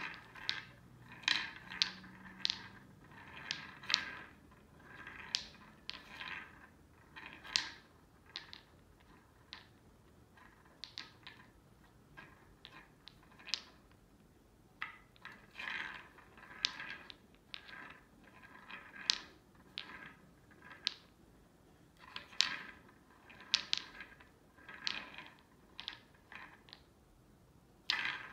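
Wooden balls clacking and rolling in the tracks of a three-tier wooden cat track toy as a kitten bats at them: irregular clacks and short rolling rattles, with brief pauses between.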